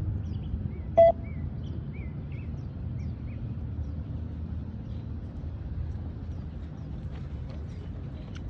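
Beep-test recording's timing beep sounding once, short and loud, about a second in, with the next beep starting right at the end; each beep signals the runners to reach the line and turn for the next shuttle. Faint bird chirps and a steady low outdoor rumble run underneath.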